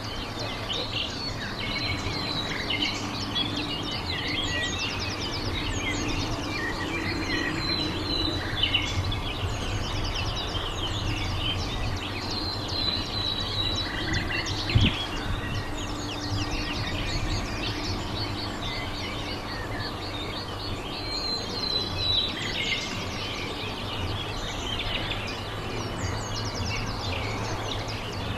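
Small birds chirping and singing over a steady low background rumble. A single sharp knock about halfway through.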